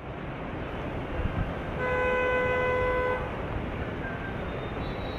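A vehicle horn sounds once, a steady honk lasting about a second and a half, over continuous street noise.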